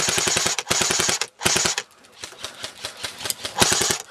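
Airsoft rifle firing full-auto in rapid bursts of about fifteen shots a second. Three bursts come close together, then a lull with a few scattered shots, then another burst near the end.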